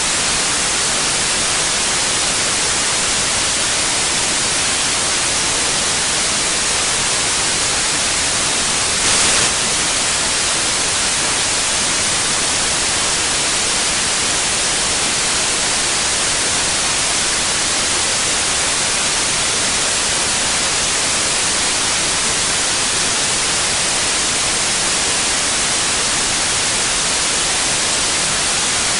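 Steady white noise: an even, unbroken hiss with no tone or rhythm, with one brief, slightly louder patch about nine seconds in.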